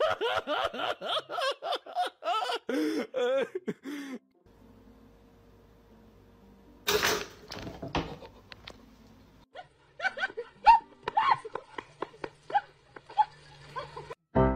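A person laughing in rapid bursts for about four seconds, then a quieter stretch, a sharp thump about seven seconds in, and more short bursts of voice near the end.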